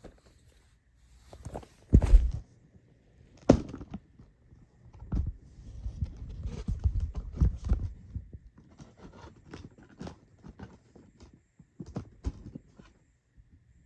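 Hands handling a DVD box set and its packaging: a heavy thump about two seconds in, a sharp knock shortly after, then a run of rustling, scraping and clicking, with scattered clicks near the end.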